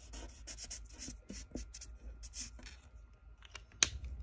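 Felt-tip marker scribbling on paper in quick repeated strokes, colouring in a small strip; a few sharp clicks near the end.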